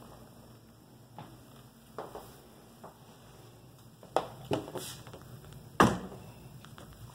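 A handful of scattered knocks and thumps over quiet room tone, the loudest about six seconds in: movement and handling noise from someone walking through the rooms, likely including an interior door.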